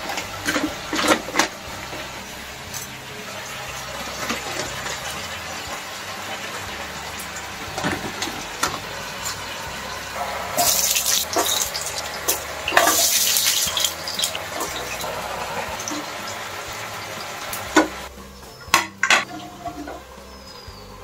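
Frozen snack bites shallow-frying in oil in a nonstick pan, a steady sizzle with two louder hissing spells about ten and thirteen seconds in. Plastic packet crinkling near the start, and a few sharp knocks of the slotted spoon near the end.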